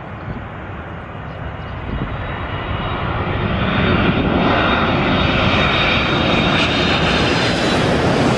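Boeing 767 twin-engine jetliner on landing approach passing low overhead: jet engine noise growing louder over the first four seconds and staying loud as it passes, with a thin high whine in the rush.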